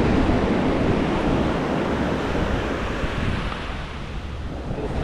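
Ocean surf washing in, loudest over the first couple of seconds and then easing off, with wind buffeting the microphone.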